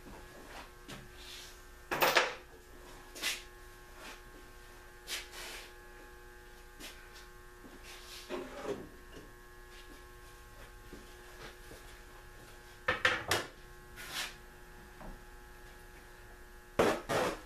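A handful of sharp knocks and clanks from hand tools being handled at a bare 1956 Packard V8 engine block on an engine stand, the loudest about two seconds in, around thirteen seconds and just before the end. A steady electrical hum lies underneath.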